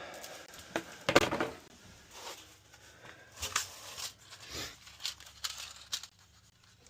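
Irregular scraping and clicking of a thin wire being worked into a furnace's clogged condensate drain, the loudest scrape about a second in.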